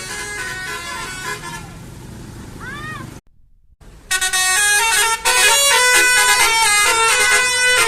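Basuri 'telolet' multi-tone bus horn playing a melody of stepped notes. It fades down over the first couple of seconds, breaks off briefly about three seconds in, then starts again much louder and keeps playing.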